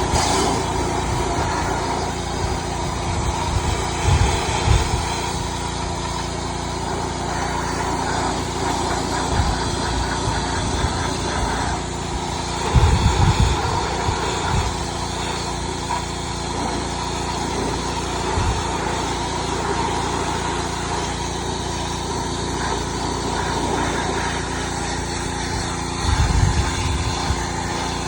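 Gas pressure washer running steadily: its small engine holds a constant pitch under the hiss of the water spray. A few brief low thumps break in about a third and near the end.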